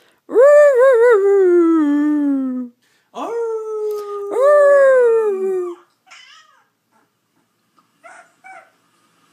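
Alaskan Malamute howling: a long howl that wavers at first and then slides down in pitch, then more howls in which two voices overlap about four seconds in. A few short, faint whimpers follow near the end.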